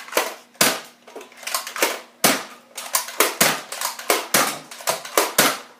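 Nerf Elite Disruptor blaster being primed and fired again and again: a rapid series of sharp plastic clacks and pops from the spring-plunger priming slide and trigger as its six-dart cylinder is emptied.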